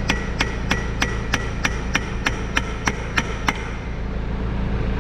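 Hammer blows on the steel rod end of a hydraulic cylinder: a quick, even series of about a dozen ringing metal strikes, roughly three a second, that stops about three and a half seconds in.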